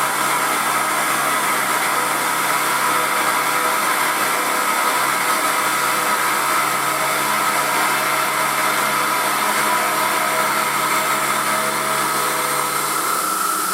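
Emco F1 CNC milling machine running steadily, its spindle and drive motors giving a continuous whir with several steady tones.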